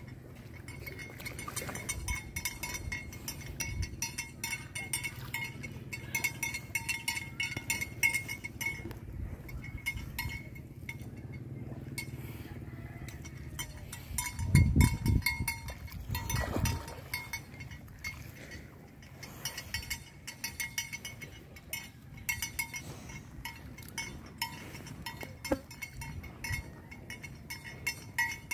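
Outdoor sound around water buffaloes wallowing in muddy water: constant light clicking and clinking with a thin steady high tone. About halfway through comes a louder low sound lasting about a second, then a smaller one just after.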